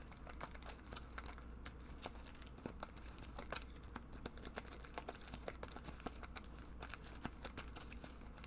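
A stack of trading cards shuffled by hand, giving an irregular run of soft clicks and flicks, several a second, over a low steady hum.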